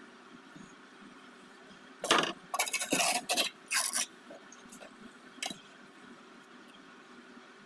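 Hard scraping on brick and mortar in a quick cluster of short strokes about two seconds in, then one short sharp click a little later.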